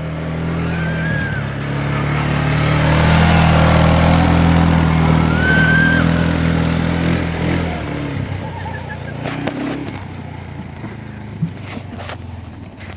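A motor vehicle engine goes past, growing louder to a peak about four seconds in and then fading away over the next few seconds. Two short high-pitched sounds come over it, about one second and five and a half seconds in.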